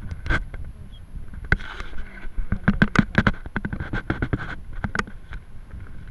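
Handling noise on a small onboard camera: irregular clicks, knocks and rubbing as it is held and turned in the hand, over a faint steady high whine.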